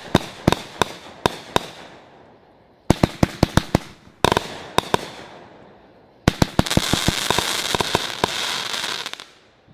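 Brothers Pyrotechnics Vega 48-shot consumer firework cake firing: a quick run of sharp bangs, about three a second, then a pause and another rapid run with one heavier report. From about six seconds in comes a dense crackling volley that lasts about three seconds and stops suddenly near the end.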